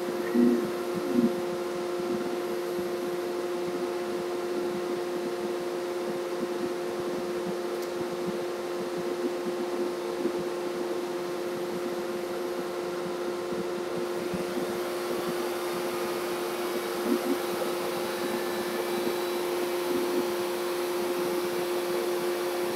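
Shop dust collector running with a steady hum, alongside the CamMaster Stinger I CNC router's gantry moving the router head across to its tool-measuring switch and back. A brighter hiss joins about two-thirds of the way through.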